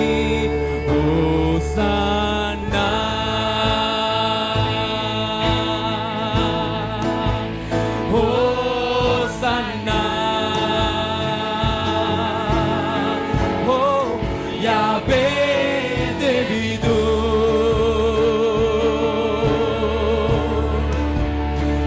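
Sinhala Christian worship hymn, sung with instrumental accompaniment; long held notes with vibrato over a steady bass.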